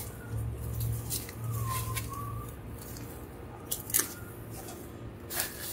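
A few short clicks and knocks from a wooden candy slide roller being handled, over a low hum that comes and goes.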